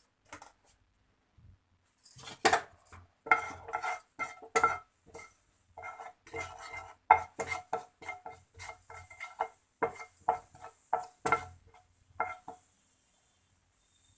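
A metal spoon repeatedly striking and scraping a pan, ringing with each hit, over the steady high sizzle of cumin seeds frying in hot oil. The strikes begin about two seconds in and stop near the end, while the sizzle carries on.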